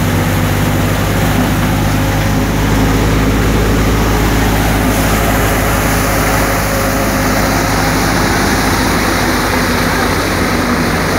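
Multi-crop threshing machine running steadily under load, a continuous mechanical hum with a rushing, rattling noise over it as dry soybean plants are fed in.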